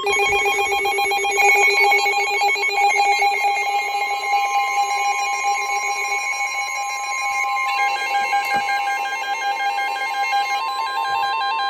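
Weather radio alert tones: a steady high tone with a warbling, ringing alarm layered over it. A lower tone drops out about six seconds in. The tones signal that a new warning is about to be broadcast.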